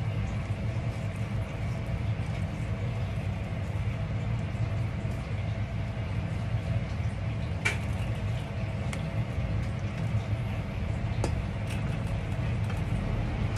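Steady low mechanical hum of kitchen background noise, with a few sharp taps of a kitchen knife against a plastic cutting board as beef is sliced thin, the clearest two past the middle.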